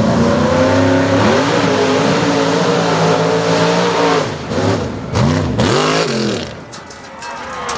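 Mud-bog truck engine revving hard at full throttle as the truck drives through the dirt pit. Its pitch holds high, then dips and climbs again several times before the sound drops away near the end.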